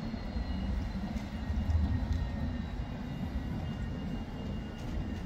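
A low-floor electric tram approaches and pulls in to a street stop. It makes a steady low rumble with a faint high whine that drifts slightly in pitch.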